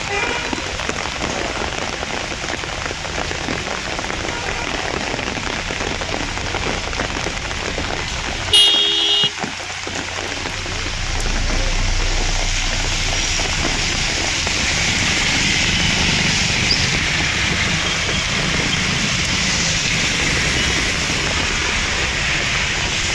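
Steady rain and water noise on a flooded street, with traffic in it. A short, loud tone breaks in about nine seconds in. From about eleven seconds the noise grows louder, with a low rumble under it.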